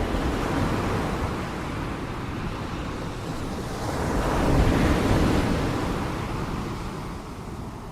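Ocean waves crashing: one breaks right at the start and a second, louder one about four to five seconds in, then fades away.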